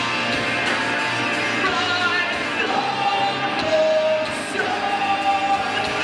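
Rock band playing live: two electric guitars and drums, with a male lead singer holding long sung notes.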